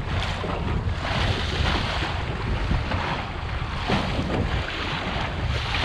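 Wind buffeting the microphone over the rush and splash of water along the hull of a Wayfarer sailing dinghy under way through choppy water. The sound is a steady, noisy rumble and hiss.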